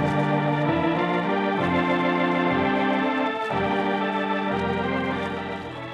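Organ music interlude between acts of a radio drama: held chords that move to new chords about every second, fading down near the end.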